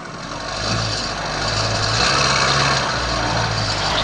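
Idling vehicle engine with a steady low hum, under a rushing noise that grows steadily louder.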